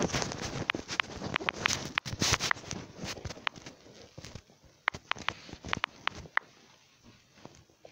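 Fingers tapping on a phone's touchscreen while typing a chat message, a string of short, sharp, irregular taps, with rustling handling noise over the first three seconds or so.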